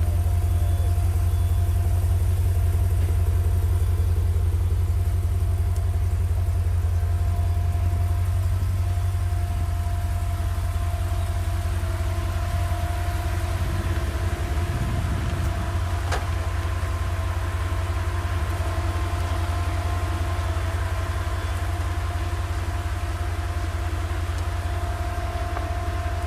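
Street traffic: a low, steady rumble of car engines idling, with a faint steady tone held underneath throughout.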